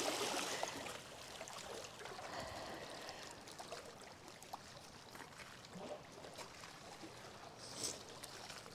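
River water lapping and splashing softly against rocks at the shoreline, a little louder in the first second, with a few faint clicks later.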